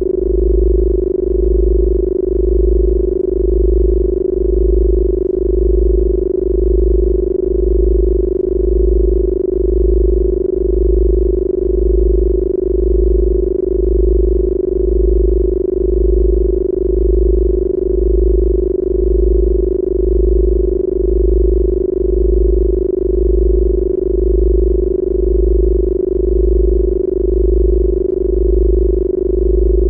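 Synthesized Rife-frequency tones: a loud, steady mid-pitched tone held over a deep bass tone that pulses about once a second, making an even electronic drone.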